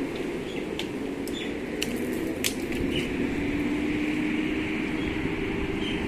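Steady rumble of road traffic with a drawn-out engine hum, joined by a few sharp clicks between about one and two and a half seconds in and faint short high chirps.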